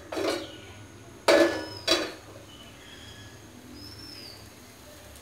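Three sharp metallic clanks of kitchen metalware, each ringing briefly: one at the start, then two close together a little over a second in. After them a bird gives a few faint, short, high chirps.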